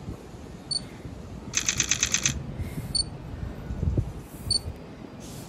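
Short high electronic beeps a few times. About a second and a half in, a rapid pulsing electric buzz or ring lasts under a second. All of it sits over a low steady rumble in a train cab.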